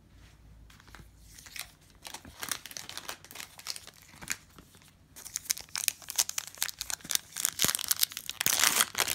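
A plastic-foil trading-card pack wrapper crinkling and being torn open by hand. It starts quiet with scattered crackles, then grows denser and louder from about five seconds in, loudest near the end as the wrapper rips.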